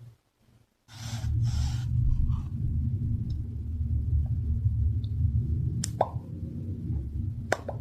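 Close-miked ASMR triggers. After a second of near silence, a steady low rubbing rumble begins with a few brief scratchy hisses. Several sharp pops follow, one about six seconds in and a quick pair near the end.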